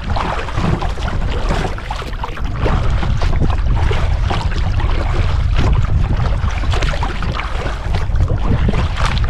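Strong wind buffeting the microphone as a steady low rumble, with choppy lake water splashing and lapping irregularly against a kayak's hull.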